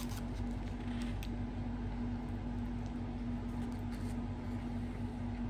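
Steady mechanical hum with one constant low tone, with a few faint clicks in the first second or so and again around four seconds in.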